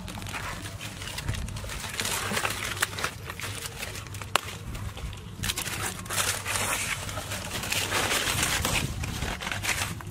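Footsteps with dry lotus leaves rustling and crackling as someone wades through a muddy, drying lotus pond, in irregular bursts with scattered sharp clicks.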